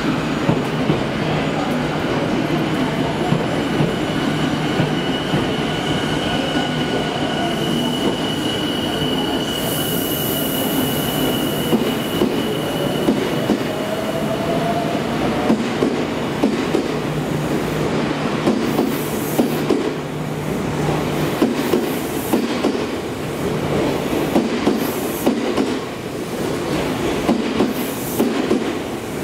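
Odakyu 30000 Series EXE limited express electric train rolling slowly along the platform, wheels clattering over rail joints under a steady rumble. A thin, high wheel squeal holds through much of the first half, and a short rising whine comes about halfway.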